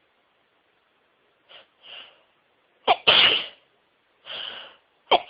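A woman in a sneezing fit: short gasping build-up breaths, then one loud, sharp sneeze about three seconds in. Another quick in-breath follows, and the next sneeze bursts out at the very end.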